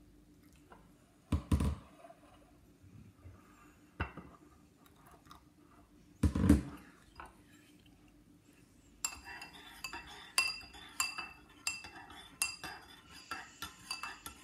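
Metal spoon stirring jelly in hot water in a ceramic bowl, clinking against the sides several times a second over the last few seconds, as the jelly is mixed to dissolve. Before that come two dull knocks, the louder one about six seconds in.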